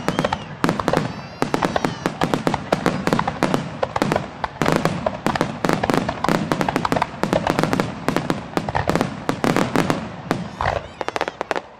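Fireworks display in full barrage: aerial shells and low-level shots going off in a rapid, overlapping succession of sharp bangs, several a second, thinning out near the end.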